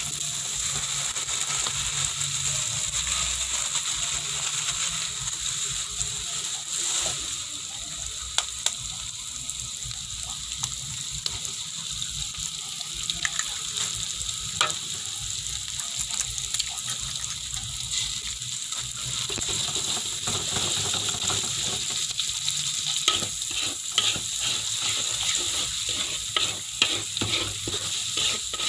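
Egg and noodles sizzling in hot oil in a wok, with a metal spatula scraping and tapping against the pan. Now and then there is a single clack, and near the end the strokes come quickly as the egg is stirred through the noodles.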